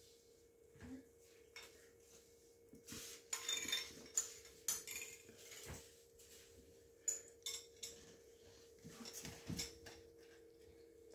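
Light clinks and clatters on a hard tiled floor as kittens play-fight and chase, coming in short flurries, some with a brief high ring. A faint steady hum runs underneath.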